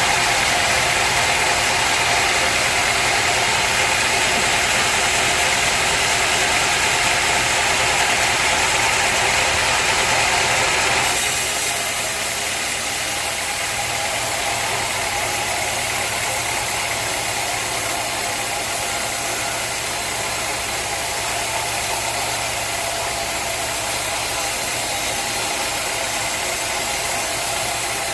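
Sawmill machinery running steadily, with an engine note under a loud hiss. About eleven seconds in the hiss drops away and the whole sound gets slightly quieter.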